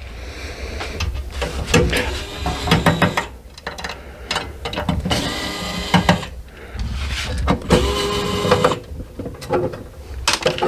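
Small electric motor whirring in three short bursts of a second or so each, with handling clicks and knocks in between.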